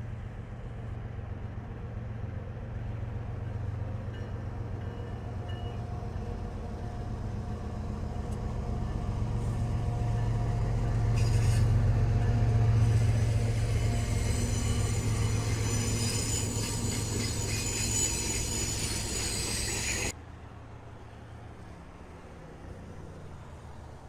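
A train passing close by: a low rumble builds to its loudest about halfway through. High-pitched squealing from steel wheels on the rail joins it in the second half, then the sound cuts off suddenly near the end.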